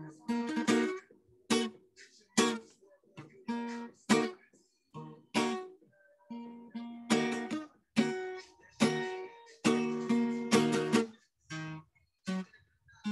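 Acoustic guitar played with separate strummed chords, about one stroke a second, each ringing briefly and dying away before the next.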